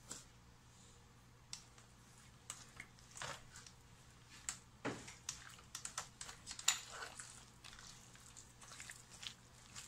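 Hands working raw chicken pieces in a milky marinade in a metal basin: irregular wet squelches and smacks, busiest in the middle.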